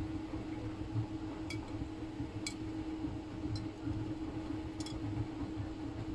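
Miele W Classic front-loading washing machine in its wash cycle: a steady motor hum as the drum turns the wet laundry, with four light clinking ticks spread through it.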